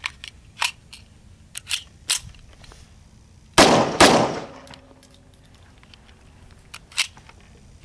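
Two pistol shots from a Czechoslovakian CZ 52 firing 7.62x25mm Tokarev rounds, fired quickly about half a second apart, a few seconds in. A few small sharp clicks come before them.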